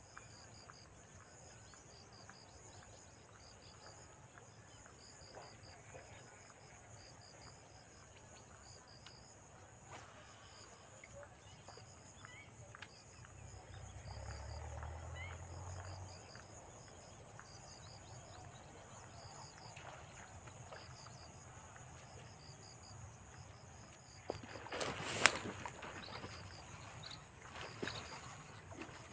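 Steady high-pitched chorus of crickets and other insects, with a second insect chirping in a regular pulsing rhythm. About 25 seconds in, a brief loud noisy burst with one sharp crack cuts across it.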